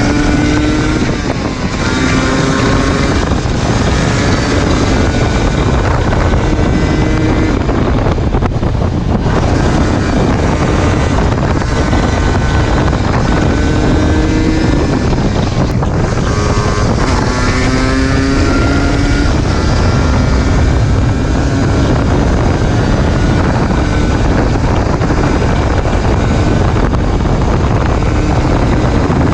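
Yamaha DT 125 single-cylinder two-stroke engine under way, its pitch climbing and dropping again and again as it accelerates and shifts up through the gears, with heavy wind noise on the microphone.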